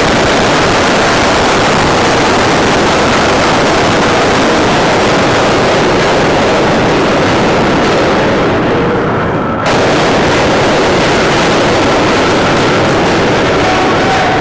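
Heavy steel anchor chain of a Gerald R. Ford-class aircraft carrier running out at high speed as the anchor is dropped: a loud, continuous clattering roar of links running out. It sags slightly and then jumps back up a little before ten seconds in.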